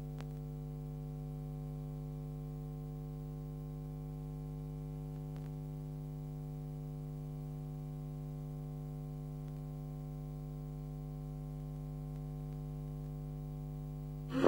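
Steady electrical mains hum: a low buzz with a stack of overtones that holds unchanged throughout, with nothing else heard.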